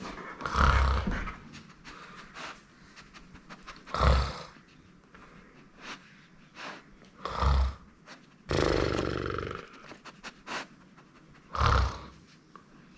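A person snoring loudly: short, rough snorts repeating every three to four seconds, with one longer, drawn-out snore just past the middle.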